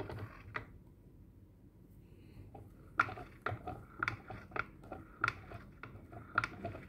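Faint, irregular clicks and light taps of handling, about two or three a second through the second half.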